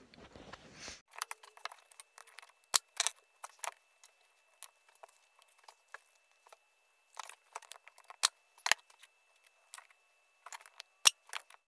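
Scattered light clicks and taps as a wooden M cutout and a wooden plaque are handled and pressed together on a workbench, with a faint steady high tone underneath.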